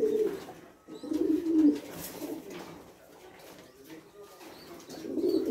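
Fantail pigeons cooing in a loft: low, bubbling coos in bouts, at the start, again about a second in, and again near the end, with a quieter stretch between.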